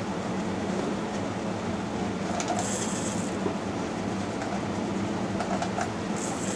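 Small cue lathe running steadily, turning a pool cue butt as Irish linen wrap is wound onto it. Brief high hissing comes twice, about two and a half seconds in and again near the end.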